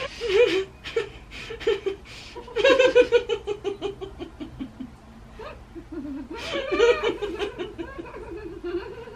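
Women laughing in bursts: a short burst at the start, a long laugh falling in pitch about two and a half seconds in, and another burst around seven seconds, with quieter giggles between.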